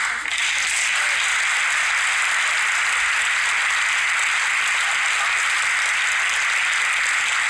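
Audience applauding, breaking out suddenly and then keeping up steadily.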